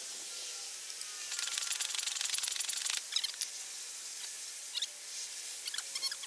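Lump charcoal fire in a small forge crackling and popping over a steady hiss. Early on there is a stretch of rapid, even rattling, about a second and a half long.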